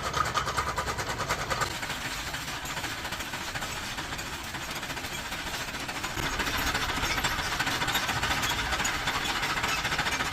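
An engine running with a rapid, even knocking that gets louder about six seconds in.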